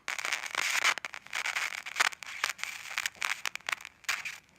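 Water-damaged Nokia flip phone's speaker crackling and glitching: dense, irregular static crackles and bursts that stop near the end. The crackling is a sign of water damage to the phone.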